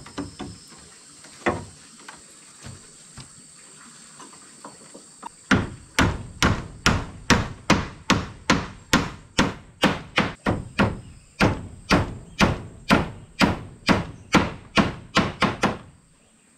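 Claw hammer driving nails into a wooden door post. A few light taps, then from about five seconds in a fast, even run of blows, about two and a half a second, that stops shortly before the end.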